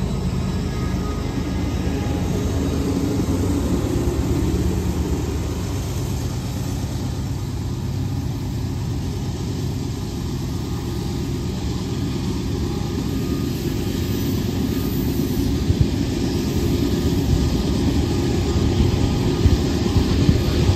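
Loaded coal train rolling past close by: a steady, heavy rumble of steel wheels on rail, with the diesel locomotive at the head end passing at first and loaded coal hopper cars after it, and a few sharper clacks near the end.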